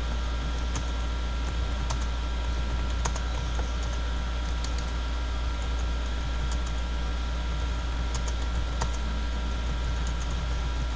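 Computer keyboard typing: irregular, spaced-out key clicks as a short sentence is typed, over a steady low hum and hiss.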